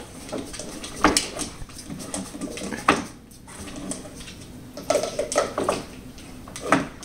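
A Belgian Malinois picking up and handling his food bowl, the bowl clattering and knocking on the floor several times, a second or two apart.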